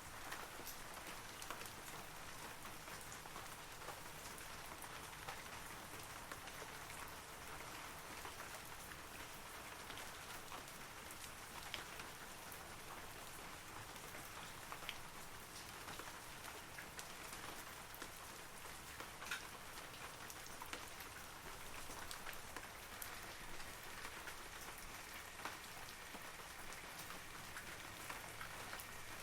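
Steady rain falling on forest trees, an even patter with scattered individual drops ticking louder now and then.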